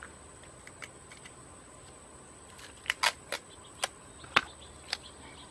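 Sticky tape crackling and snapping as it is pulled and peeled off disposable gloves. A scattered series of about six sharp clicks falls in the second half, the loudest a little past the middle.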